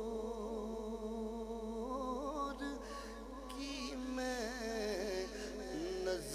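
A man singing a Punjabi naat into a microphone, drawing out long held notes that waver and bend in pitch, with no words clearly sung.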